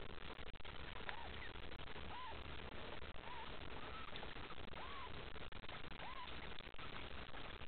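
Mallard ducklings cheeping: short calls that rise and fall, about one a second, over a steady background hiss.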